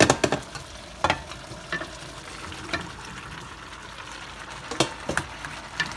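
Beef, carrot and tomato stew sizzling steadily in a frying pan, broken by a sharp knock at the start and scattered knocks and clunks as peeled green banana pieces are tipped in from a steel bowl.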